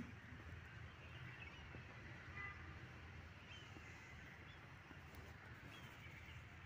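Near silence: faint outdoor ambience with a low rumble and a few faint high bird chirps.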